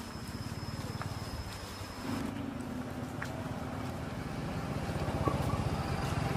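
A motor running steadily with a low, rapidly pulsing hum that grows louder toward the end.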